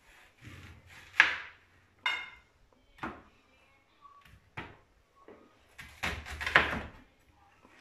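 Chef's knife cutting a peeled onion on a plastic cutting board: a handful of separate, irregular strokes as the blade slices through the onion and knocks on the board. The loudest come about a second in and around six seconds in.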